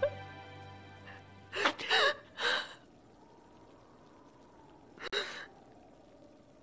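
A woman sobbing in short, sharp gasps, a cluster about two seconds in and one more near five seconds, while background music fades out. Under it a kettle on a stove hisses faintly as it steams.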